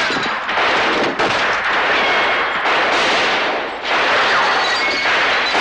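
A movie gunfight soundtrack: many gunshots fired so fast that they merge into a near-continuous din, with only brief dips.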